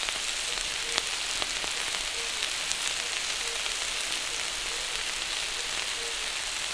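Sliced onions and cooked new potatoes frying in oil in a pan: a steady sizzle with occasional crackles and pops.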